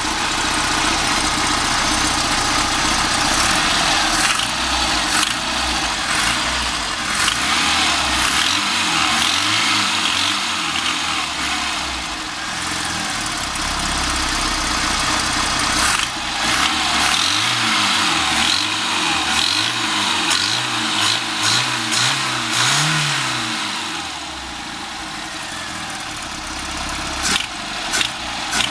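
1998 Rover Mini Cooper MPI's 1275 cc A-series four-cylinder engine idling and being revved, with a harsh metallic knock that comes in as the throttle is opened and goes away when the revs are steady or falling. The owner cannot tell where the knock comes from.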